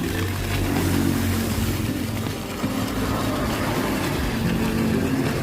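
DC electric motor of a snow-foam soap sprayer running steadily with a low hum.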